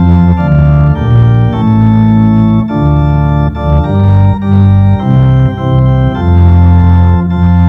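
Organ playing slow music in sustained full chords that change about every half second to a second.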